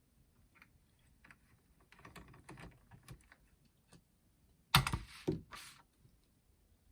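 Small plastic clicks and taps from handling a boombox's cassette mechanism, with a brief louder clatter of knocks about five seconds in.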